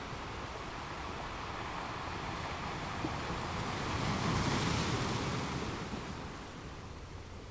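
Sea water rushing along the side of a sailing boat, a wash that swells to its loudest about halfway through and then dies away.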